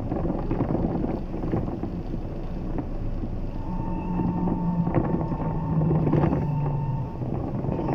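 Bogdan T901.10 trolleybus running along the route, heard from inside: a steady rumble of the ride. About halfway through, an electric whine from the traction drive joins in, a high tone held steady over a lower one that slowly falls.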